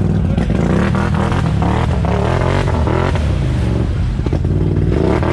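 ATV engine running and revving, its pitch rising and falling a couple of seconds in.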